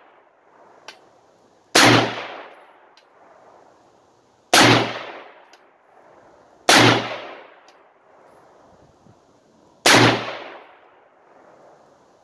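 Four rifle shots from a Springfield Saint Victor AR-15 in 5.56 fitted with a muzzle brake, fired a few seconds apart at an uneven pace. Each shot has an echo that fades over about a second, with faint clinks in between.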